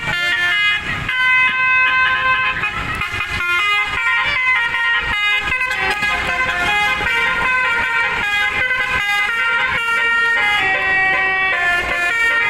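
Indonesian bus telolet horn driven by a DAV module, playing a melody of air-horn notes that jump from pitch to pitch every fraction of a second, several notes sounding together in places.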